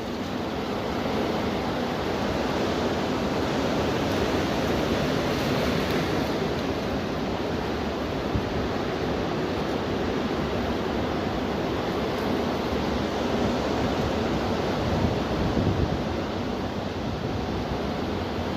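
High wind blowing in gusts, a loud rushing noise with a low rumble of wind buffeting the microphone. It picks up about a second in and swells briefly near the end.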